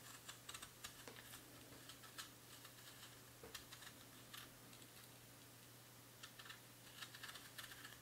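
Victorinox RangerWood 55 pocket-knife blade paring the skin off an apple: faint, irregular crisp clicks and cuts.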